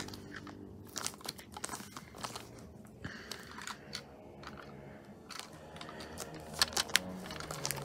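Thin clear plastic bag crinkling and crackling as a wrapped plastic toy train body is handled and turned over in the hand, in irregular crackles.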